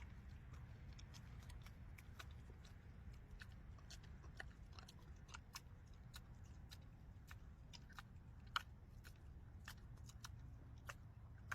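An animal chewing cake: faint, irregular crisp clicks and crunches, several a second, over a low steady rumble, with one louder crunch about eight and a half seconds in.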